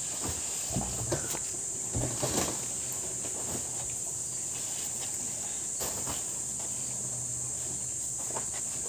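Steady high-pitched insect buzzing, with a few short knocks and clunks in the first few seconds as pots and bags are handled in the back of a truck.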